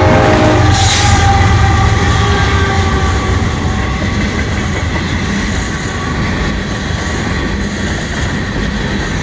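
Freight train passing close by: the diesel locomotive's air horn cuts off about half a second in, then the locomotives and cars roll past in a steady rumble with faint wheel squeal.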